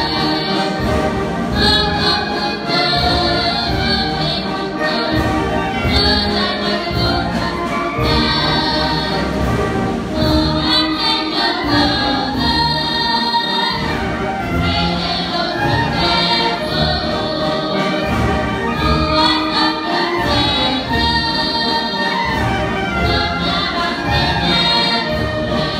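A large wind band of clarinets, saxophones, flutes and sousaphones playing a piece together, with many held notes over a pulsing bass line.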